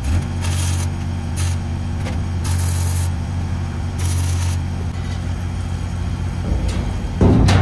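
An engine idling steadily, with several short bursts of hissing sizzle from stick welding on the dumpster's steel. A louder knock comes near the end.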